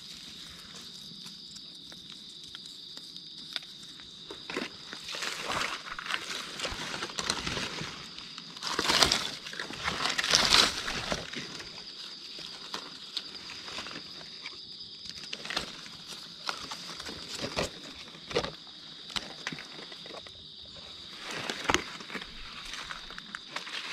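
Irregular rustling and crunching of dry leaf litter as someone walks and forages on the forest floor, with two louder bouts near the middle. A steady, high insect drone runs underneath.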